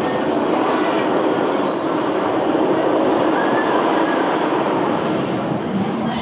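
Steel roller coaster train running along its track: a steady rumble of wheels on the rails.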